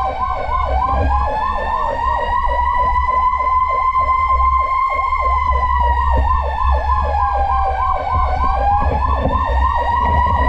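Fire truck sirens sounding together: a slow wail that dips near the start, climbs to a peak in the middle and dips again near the end, overlaid by a fast yelp repeating several times a second, with a low rumble underneath.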